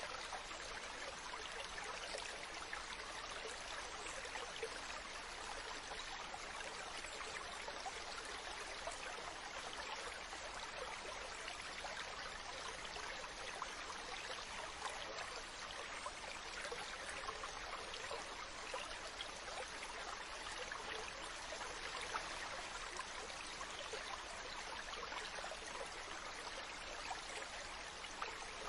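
Mountain stream running steadily: a continuous rush of water over rocks with fine splashing and trickling detail.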